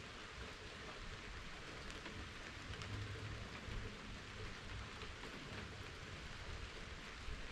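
Steady rain falling, with a few separate drips standing out and a faint low rumble about three seconds in.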